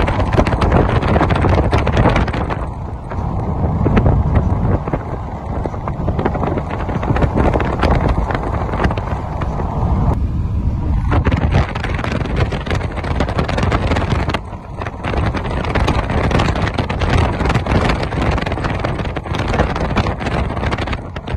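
Car driving along the road, heard from inside the cabin: steady rumbling road and wind noise, easing briefly twice partway through.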